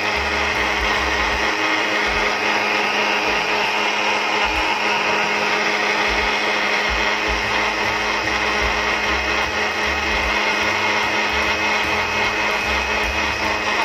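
Panasonic MJ-M176P juicer/blender motor running steadily, blending pennywort (centella) leaves into a green juice.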